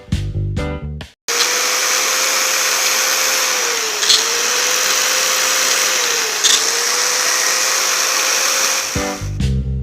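A 775 DC motor driving a small home-built lathe, running at a steady high whine. Its pitch dips briefly twice, each time with a short scraping click.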